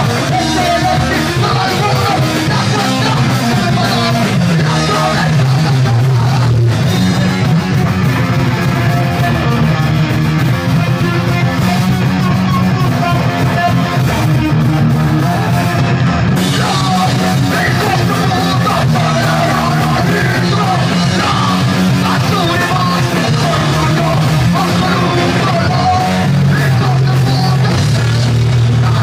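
Punk rock band playing live, with electric guitars and a drum kit, and a singer yelling into the microphone.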